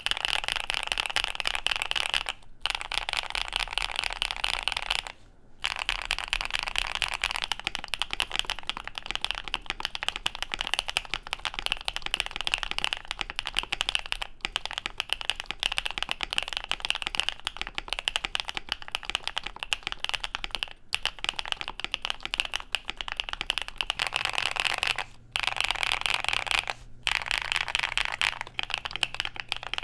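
Fast, continuous typing on a KBD67 Lite mechanical keyboard fitted with Coley linear switches, a dense stream of keystroke clacks. The typing stops for a moment four times.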